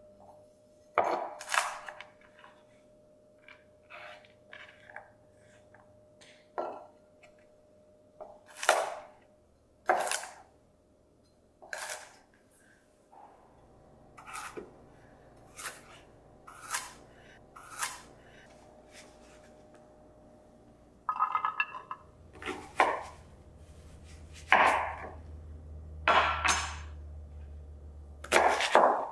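Chef's knife chopping vegetables on a wooden cutting board: a series of separate sharp knocks, spaced irregularly about one to two seconds apart.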